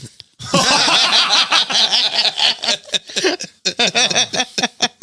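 Men laughing hard into close microphones, a run of breathy, choppy bursts of laughter that starts about half a second in.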